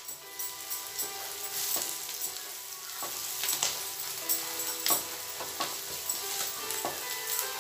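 Sliced onions and ground spices sizzling in oil in a kadai while a wooden spatula stirs them, scraping and knocking against the pan with irregular strokes. This is the masala being fried.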